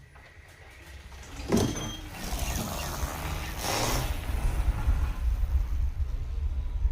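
Talaria MX5 electric dirt bike setting off on a test ride: a sharp knock about a second and a half in, then a rising rush of riding noise with heavy wind buffeting on the microphone.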